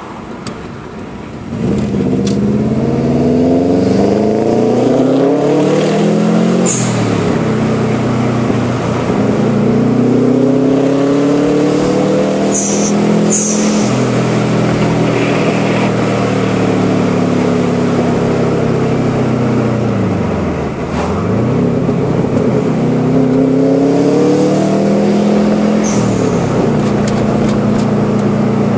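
Turbocharged Subaru Impreza flat-four engine pulling hard through the gears, heard from inside the car. Each time the revs drop for a shift, the HKS Sequential dump valve lets out a short, loud hiss: once about seven seconds in, twice around thirteen seconds, and once near the end.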